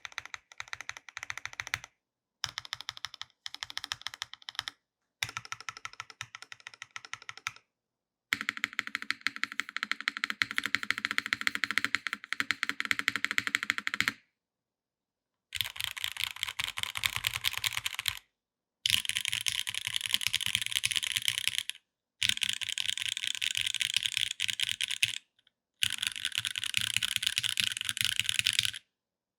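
Hand Engineering Haus custom mechanical keyboard (top-mount, aluminium full plate, lubed and filmed Gateron X R1 switches, GMK keycaps) being typed on. The first half is the modifier keys, pressed in short runs of clicks. From about halfway, fast rolls across the home row follow in four bursts of rapid clacking.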